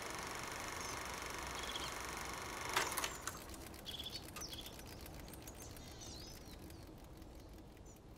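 Quiet outdoor ambience with small birds chirping now and then. A knock about three seconds in is followed by a run of faint clicks as the sound fades out.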